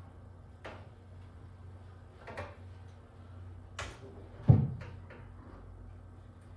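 Wooden knocks and bumps from a marine-plywood wall cabinet being handled and pushed against the wall, a few scattered knocks with the loudest thump about four and a half seconds in, over a low steady hum.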